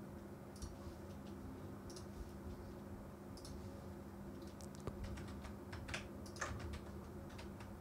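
Faint computer keyboard keystrokes, a few scattered taps and then a quick run of them about five to six and a half seconds in, over a faint steady low hum.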